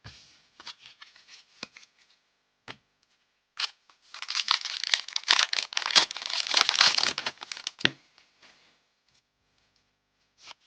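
Pokémon TCG booster pack foil wrapper being handled, then torn open and crinkled, with a dense run of crackling tearing from about four to eight seconds in. Light crinkles and small clicks come before it.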